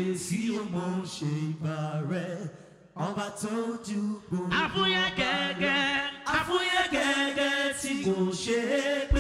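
Male voices singing live into microphones with little or no instrumental backing: a lead voice with vibrato, with other voices joining. The singing breaks off briefly about three seconds in, then resumes.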